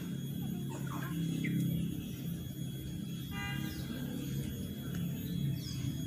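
Outdoor ambience with a steady low rumble. A single short honk comes a little past three seconds in, and a few faint bird chirps are scattered through it.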